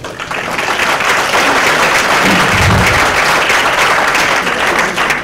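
Audience applauding: many hands clapping in a dense, steady patter that builds over the first second and then holds.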